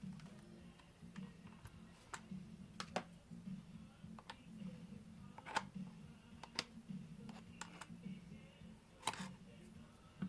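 Faint, irregular light clicks and taps of small parts and tools being handled while a jigsaw is taken apart, over a low steady hum.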